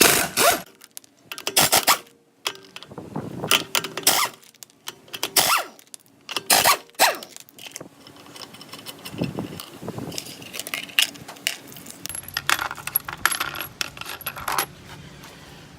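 Irregular sharp metallic clanks and clinks, some ringing briefly: hand tools and metal parts being handled and set down.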